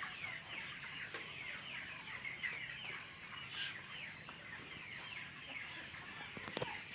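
A large flock of chickens in a poultry shed calling all at once: a dense, continuous chorus of short, overlapping calls, each falling in pitch.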